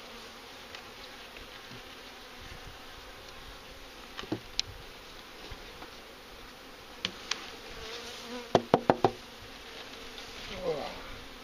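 Honeybees buzzing steadily around an open hive, with a few sharp knocks and a quick run of four or five knocks about two-thirds of the way through.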